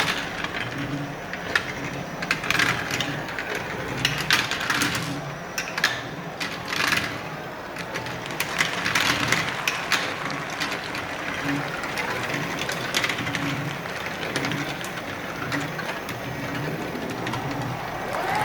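Rapid, irregular clicking and clattering of marbles knocking together and rolling along a track.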